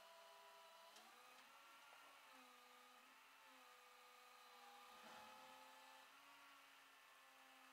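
Faint steady whine of a flatbed tow truck's engine-driven hydraulics running, its pitch shifting slightly a few times, with a couple of faint clicks.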